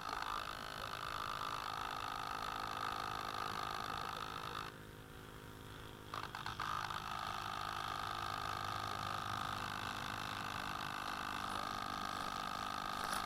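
Electric ducted fan of a model Cessna 550 jet running with a steady whine. It cuts out a little under five seconds in and spins back up about a second and a half later.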